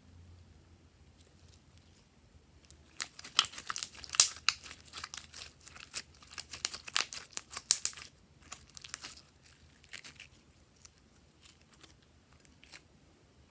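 Glossy slime being worked by hand, giving a fast run of crackling pops and clicks from trapped air. The run starts about three seconds in and thins out to a few scattered clicks after about ten seconds.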